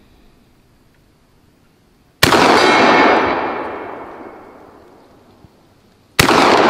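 Two shots from an RIA VR80 12-gauge semi-automatic shotgun, about four seconds apart, each followed by a long echo rolling away over a couple of seconds; the second shot comes near the end.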